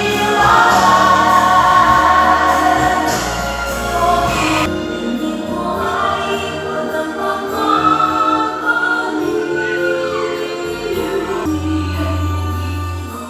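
Background music with a choir singing.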